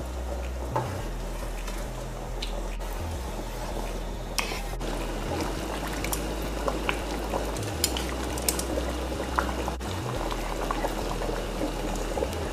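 Pot of water at a rolling boil with lasagna sheets in it, bubbling steadily. From about a third of the way in, scattered sharp clicks of metal tongs against the noodles and the pot.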